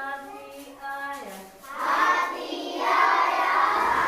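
A child's voice sings a few held notes that step down in pitch. From about two seconds in it changes to a louder, rougher, drawn-out vocal sound.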